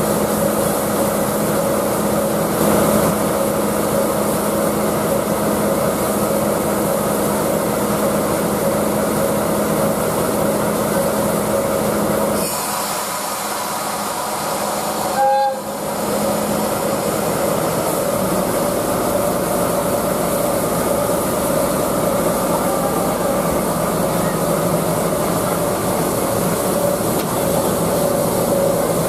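Steam locomotive C11 325 and the coupled diesel locomotive running at the platform: a steady mechanical hum with a constant tone and hiss. The low hum thins for several seconds about halfway, with a short sharp sound in the middle of that stretch.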